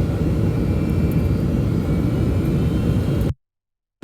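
Steady roar of jet engines and airflow heard inside a Boeing 757's passenger cabin on short final approach, cutting off abruptly to dead silence near the end.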